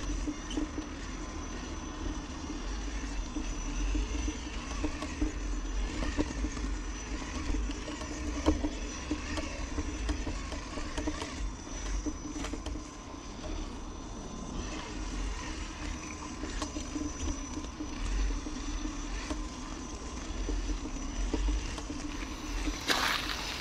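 Traxxas TRX-4 RC crawler driving slowly over gravel: the steady hum of its electric motor and gearbox, with scattered clicks and crunches of stones under the wheels. Near the end a louder hiss sets in.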